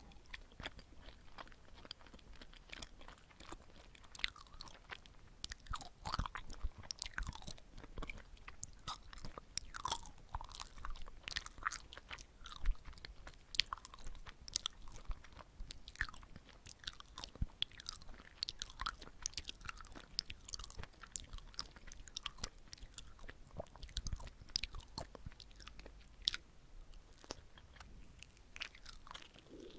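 Close-miked chewing of chewy glutinous rice cake (chapssaltteok) filled with sweet red bean paste: irregular sticky, wet mouth clicks and smacks.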